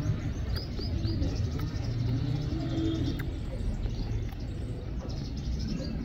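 Outdoor birds calling: a quick run of short, high chirps about half a second in and a few more faint high calls later, over low cooing that comes and goes.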